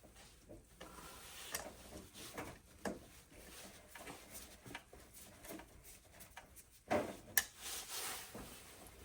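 Faint handling noises of wire connectors being pushed onto a circuit board: light rubbing and scattered small clicks, with a louder knock and a sharp click about seven seconds in.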